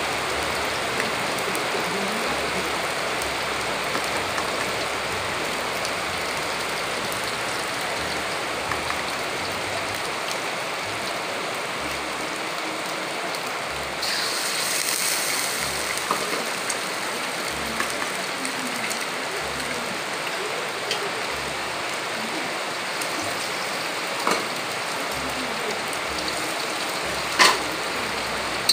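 Chilli and onion paste frying in oil in a wok, with a steady sizzle. About halfway through, eggs are poured in from a bowl and the sizzle turns louder and brighter for a few seconds. A couple of sharp knocks come near the end.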